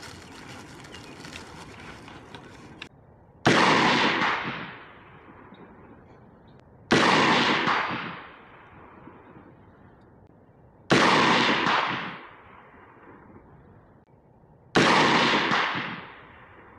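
Four rifle shots from a SIG MCX Spear LT, a piston-driven rifle firing 5.56 mm 77-grain AAC OTM rounds, spaced roughly three and a half to four seconds apart. Each report rings out and fades over about a second and a half. The first shot comes about three and a half seconds in.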